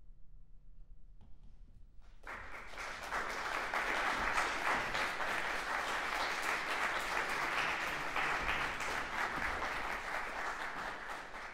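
After about two seconds of quiet, an audience breaks into applause that carries on steadily.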